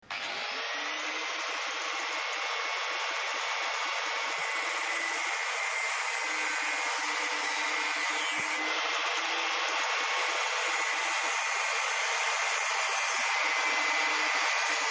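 Small handheld power tool running steadily with a high whine, cutting a half-inch PVC tee.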